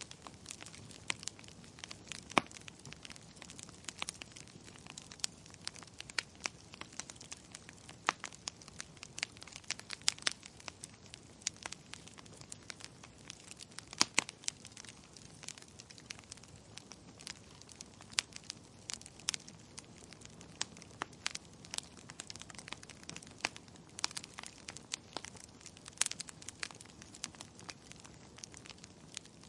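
Burning logs crackling, with dense irregular snaps and a few louder pops.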